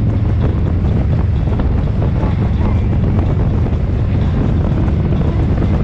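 Wind buffeting the microphone of a motorcycle under way, over the steady low drone of its engine.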